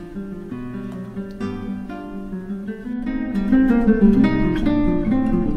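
Background music: acoustic guitar playing plucked and strummed notes, growing louder about three seconds in.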